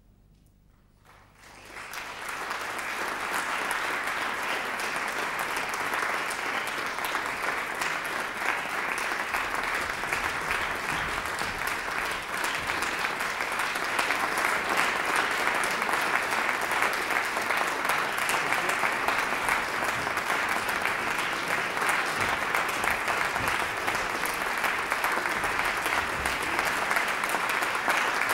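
Audience applauding: after a moment of near silence, clapping starts about a second and a half in, swells quickly and carries on steadily, growing a little louder about halfway through.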